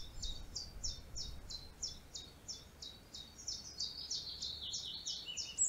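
A songbird singing a long series of high, quick downward-sweeping notes, about four a second, that slide lower near the end.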